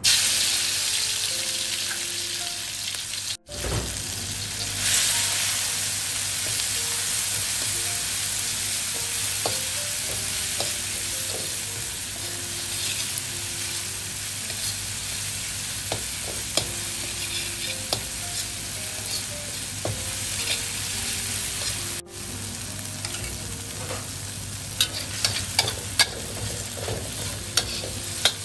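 Chopped chilies and garlic sizzling in hot oil in a wok, with a loud burst of sizzle as the paste goes in, while a metal ladle stirs it. Sharp clicks and scrapes of the ladle against the wok near the end.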